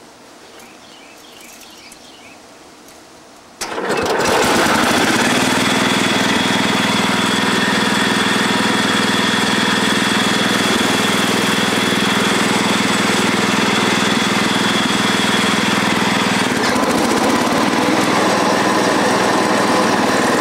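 Riding lawn tractor's engine, stalled and quiet at first, suddenly catches on the restart about three and a half seconds in and then runs steadily. Its note shifts slightly late on.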